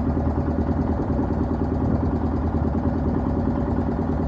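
A small boat's motor running steadily at an even pitch while crossing swift floodwater.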